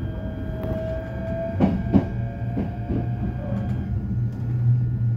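Interior of a moving train: a steady low running hum, a few sharp wheel clacks over rail joints about one and a half to three seconds in, and a faint whine that rises slightly early on.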